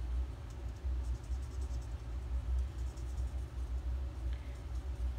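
Steady low rumble of a home furnace running, with faint scratches of an alcohol marker's tip stroking across paper.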